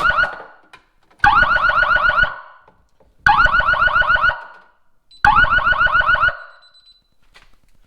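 Fire alarm sounder going off in loud blasts of about a second, one every two seconds, tripped by jumping two terminals on the fire zone's thermostat. It stops after the third full blast.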